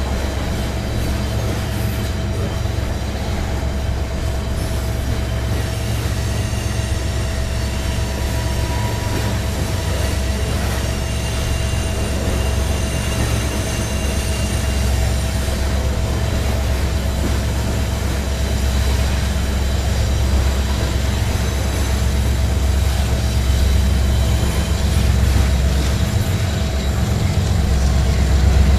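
Freight train rolling past: a steady rumble of railcars with a thin, steady wheel squeal over it, growing louder near the end.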